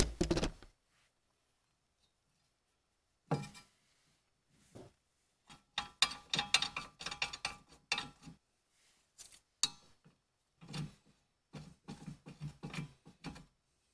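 Metal parts clinking and knocking as a brake caliper bracket with its pads is fitted over the rotor: scattered short clicks and clinks starting about three seconds in, busiest in the middle, with one sharper click near the end.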